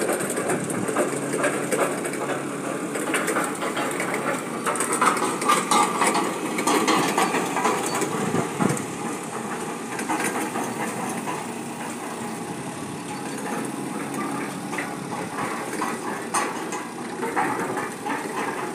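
Two forklift engines running steadily while the forklifts lift a large steel ship panel, with scattered knocks throughout.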